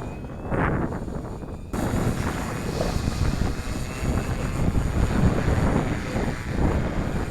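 Strong gusty wind buffeting the microphone, rumbling and fluttering, getting fuller about two seconds in. Behind it is a faint steady whine from the multirotor drone's motors.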